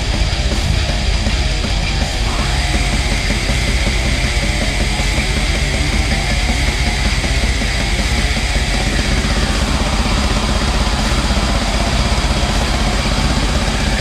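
Loud, dense, distorted heavy music, a continuous wall of noise. A high held tone comes in about two seconds in and slides down about two-thirds of the way through.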